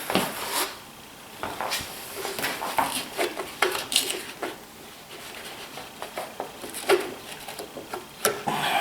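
Scattered light metallic clinks and knocks of parts and tools being handled, irregular with no steady rhythm and one sharper knock near the end.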